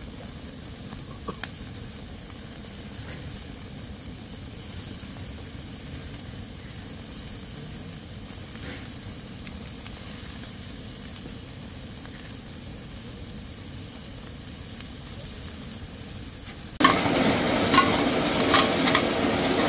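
Meat sizzling steadily in hot fat in a pan. About 17 seconds in, much louder stir-frying starts suddenly, with a utensil knocking and scraping against the pan.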